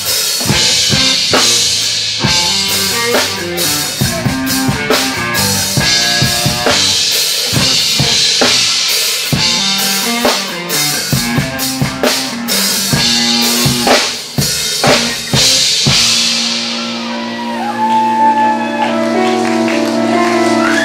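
Live band of drum kit, electric guitar, bass guitar and keyboard playing an instrumental passage. About three-quarters of the way through, the drums stop and held chords ring on.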